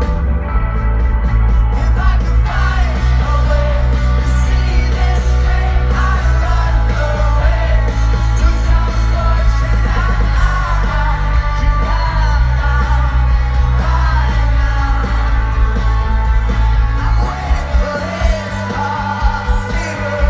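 Live rock band playing with a male lead singer, with a sustained bass line and drums. Near the end the low end changes to a choppy, pulsing beat.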